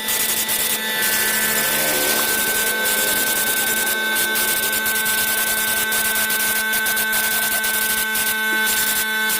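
A power tool running steadily, a constant whine with several fixed pitches over a hiss.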